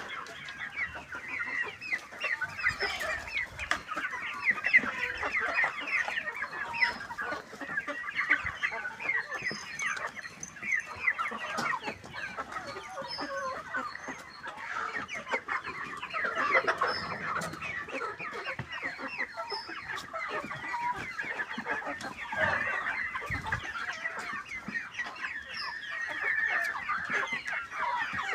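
A flock of domestic chickens clucking continuously, many birds calling over one another.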